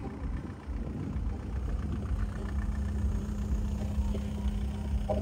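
Car engine idling close by, a steady low rumble; a steady low hum joins about two seconds in.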